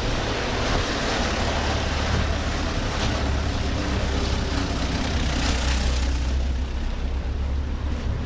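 A car driving past over a cobblestone street, its engine and tyres making a low rumble that fades out about six and a half seconds in.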